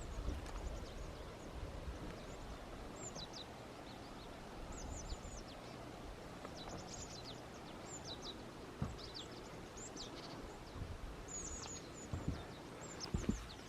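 Small birds calling with many short, high, quickly falling chirps over a faint low rumble of wind. A few soft thumps come near the end.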